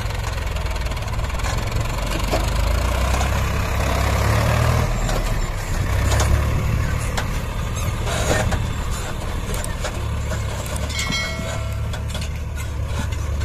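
HMT tractor's diesel engine pulling a trolley fully loaded with soil, a steady low rumble that swells about four to seven seconds in, with scattered knocks.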